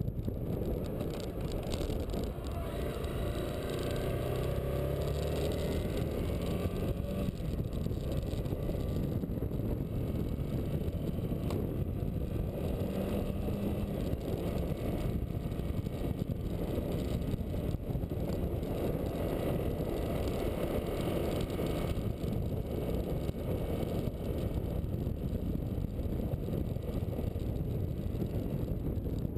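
Motorcycle riding at road speed: a steady rush of engine and wind noise, with the engine's pitch rising a few seconds in as it accelerates.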